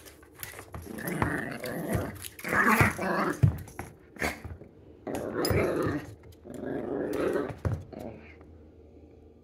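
Small terrier growling in rough bouts as it wrestles and bites a rubber Croc clog, with knocks and scuffles against a hardwood floor. The growling dies away near the end.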